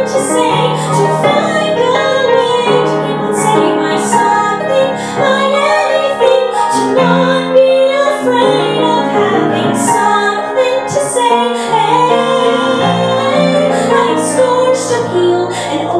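A woman singing a musical-theatre song with piano accompaniment.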